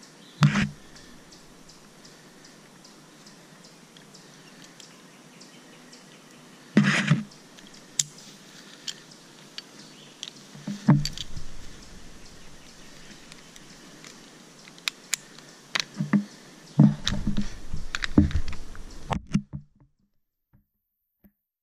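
Tree-climbing gear being handled: scattered clicks and knocks of carabiners and metal rope hardware and the rub of climbing rope, over a faint steady background. A busier run of handling noise comes near the end, then the sound drops out almost completely.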